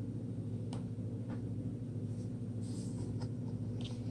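Soft rustles and a few light clicks of a picture book's paper pages being handled and turned, over a steady low hum.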